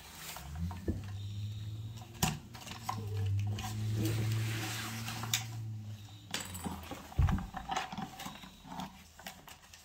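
Plastic clicks and knocks from a toy car-carrier truck as it is handled and its loaded upper deck tilted, with a louder knock about seven seconds in. A low steady hum sits under the first six seconds.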